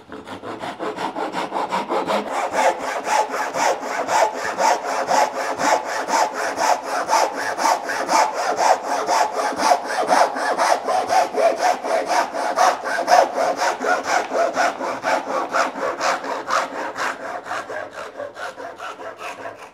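Fine-toothed handsaw crosscutting through a clamped bundle of thin softwood lattice bars, in steady rasping strokes about three a second. The strokes grow lighter near the end as the cut is finished gently so the wood does not split.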